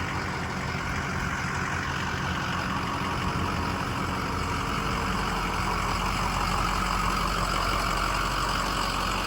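Truck driving on a dirt road: steady engine and road noise that grows a little louder over the last few seconds.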